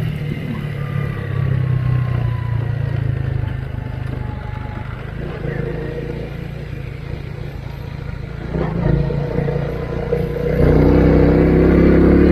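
Motorcycle engine running while riding, with a steady low hum. About two-thirds of the way through, the engine note grows louder as it picks up speed.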